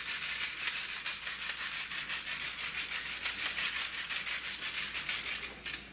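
Hand-turned spice mill grinding seasoning, a rapid rasping of many quick strokes a second, which stops near the end.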